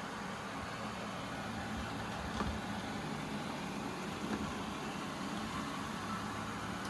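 Eufy RoboVac 15C robot vacuum running with a steady whirring hum, with a couple of faint knocks.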